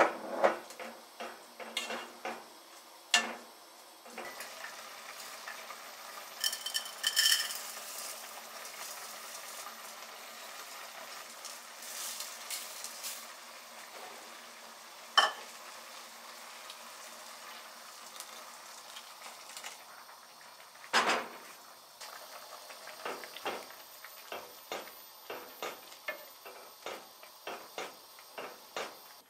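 Wooden spatula stirring and scraping a tomato mixture in a stone-coated pot, with the food sizzling over the gas flame and a few sharp knocks of the spatula against the pot. Near the end, a quick run of stirring strokes.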